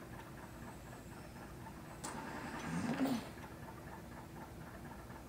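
Quiet room with a single click about two seconds in, followed by about a second of airy sound with a low tone that bends up and then down.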